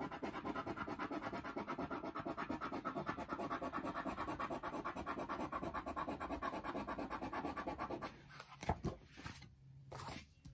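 Scratching the coating off a paper scratch-off lottery ticket with a small round scratcher: quick, rhythmic back-and-forth strokes, about ten a second, that stop about eight seconds in, followed by a few soft knocks.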